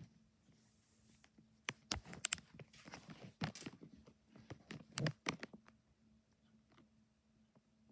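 Casablanca Delta II ceiling fan's K55 motor humming steadily at low speed. A run of clicks and knocks, the loudest sounds here, starts about two seconds in and stops about five and a half seconds in.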